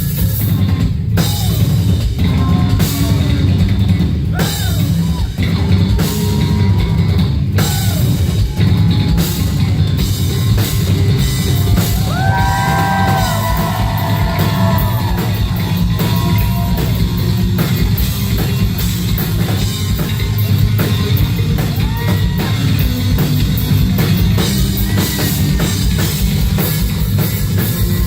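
Live rock band playing loud: an electric bass guitar solo over a driving drum kit, heavy in the low end, with some sliding high notes about halfway through.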